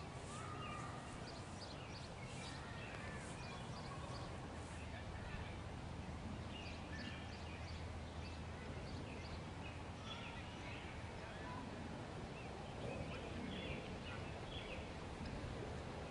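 Open-air field ambience: a steady low rumble with faint, scattered short high calls from a distance.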